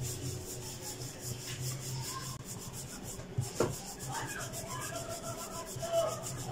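Wooden rolling pin rolling flour dough back and forth on a stone countertop, a soft rubbing sound, with a single sharp knock about three and a half seconds in.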